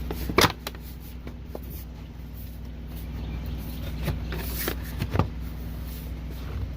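The air filter housing cover is fitted and knocked into place: a loud sharp clack about half a second in, then several more knocks and clicks around four to five seconds in, as its latch clips are snapped shut. A steady low hum runs underneath.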